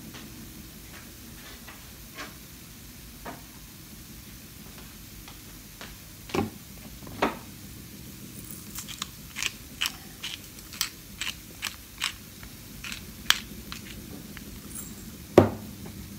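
Black pepper being dispensed over food in a pan: an irregular run of short, sharp clicks and crackles, about two a second for several seconds, with a couple of dull knocks before it and a louder knock near the end.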